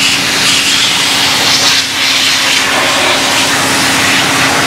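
Pressurised cleaning spray hissing steadily as the motorcycle's parts are washed, over the steady hum of a running motor.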